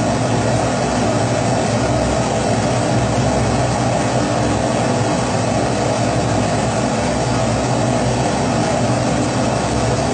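Pressurized kerosene stove (Primus-type 'babour') burner running: a loud, constant, even rush of burning vapour that does not change.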